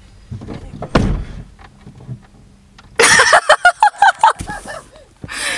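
A car door shut with a thunk about a second in, then a loud burst of voice from about three seconds in.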